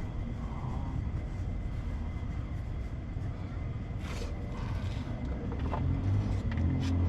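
Low rumble of a motor vehicle that grows louder near the end, with a few light clicks and knocks.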